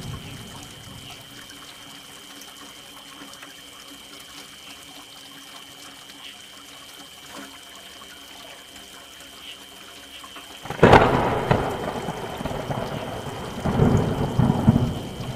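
Steady rain falling, then about eleven seconds in a sudden sharp thunderclap that rolls into a loud rumble, which swells again near the end.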